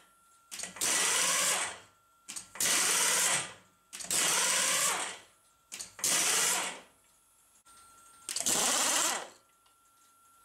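Pneumatic impact driver on top of a mill-drill spindle, used as a tool changer, hammering the drawbar in five short bursts of about a second each, each starting with a click as it is pushed down onto the drawbar. It is loosening or tightening the drawbar that holds the tool.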